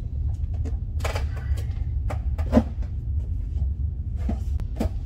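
Scattered clicks and knocks of a power steering hose and tools being handled in an engine bay, the loudest about two and a half seconds in, over a steady low rumble.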